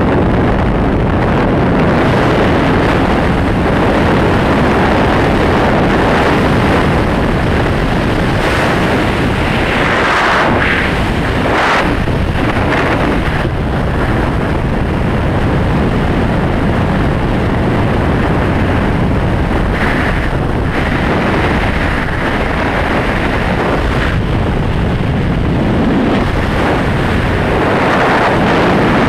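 Steady, loud rush of freefall wind blasting over the camera's microphone during a high-altitude skydive, with a few brief surges partway through.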